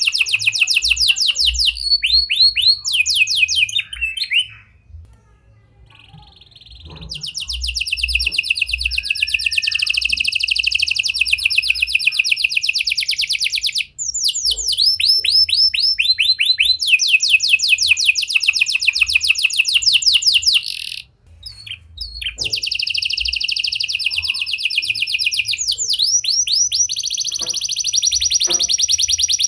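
Domestic canary singing long, fast trills of rapidly repeated high notes, a song carrying prinia- and lovebird-style phrases. The song breaks off briefly twice.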